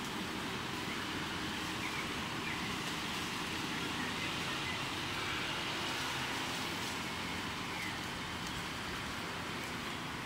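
Steady outdoor background noise, a constant even rush with no clear single source, with a few faint short chirps.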